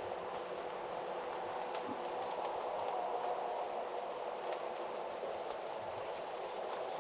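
Steady rain falling, with a small high chirp repeating about twice a second from some creature.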